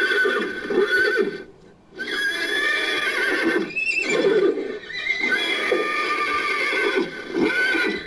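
Horse whinnies edited into a creature sound effect for an imagined dinosaur: a run of pitched, wavering neighing calls with short breaks between them, the longest about one and a half seconds in.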